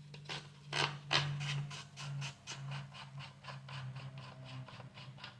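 The nut holding the front handguard of a Tokarev TAR-12 shotgun being unscrewed: a series of short metal scraping clicks, about three a second, getting fainter toward the end.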